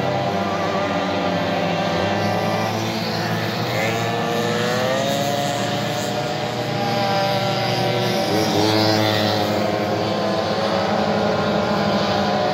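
Racing mopeds' small two-stroke engines running hard as they circulate, several at once at different pitches. One rises in pitch through the middle as it accelerates, and another picks up again after a dip a little after two-thirds of the way.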